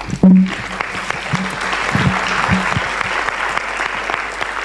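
Audience clapping in applause at the close of a talk, starting a moment in with a thump and then holding steady.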